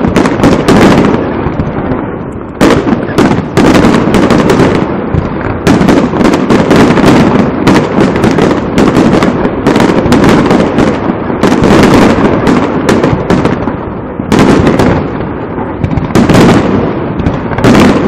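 Aerial fireworks bursting overhead in quick succession: a dense, loud run of bangs and crackles with hardly a pause.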